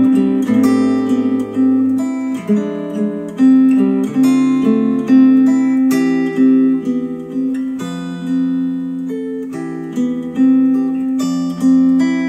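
Instrumental music of plucked string notes over a bass line, played back through Micca RB42 bookshelf speakers driven by a Yamaha A-S301 integrated amplifier.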